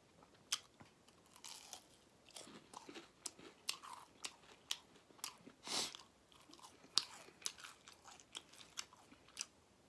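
Close-up chewing and biting on crispy battered fried fish: irregular sharp crunches and wet mouth sounds, with the loudest crunches about half a second in, near six seconds and at seven seconds.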